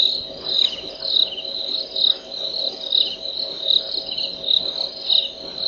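Night insects, crickets by their sound, chirping in a dense chorus: high pulsed trills repeating every half second to a second over a continuous high ringing.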